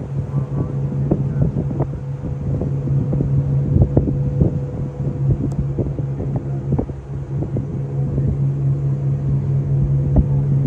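A fireboat's engines running steadily underway, a constant low drone, with wind buffeting the microphone in irregular gusts.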